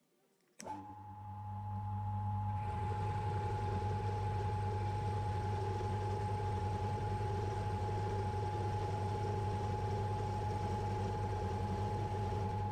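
Mill's spindle motor switched on about half a second in, running with a steady hum and a steady whine. From about two and a half seconds in, a twist drill cuts into the metal chuck body, drilling a mounting hole and adding a rougher cutting noise.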